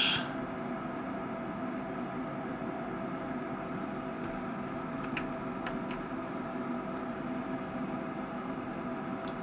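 Steady electrical hum with a faint whine over a light hiss, with a couple of faint ticks about five to six seconds in and another near the end.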